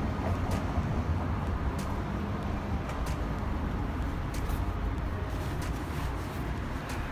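Steady low vehicle rumble with a faint hiss and a few light clicks.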